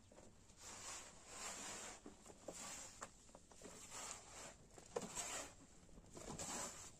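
Hands kneading and squeezing moist, lumpy bread dough in an aluminium basin: soft squishing and rustling strokes, roughly one a second.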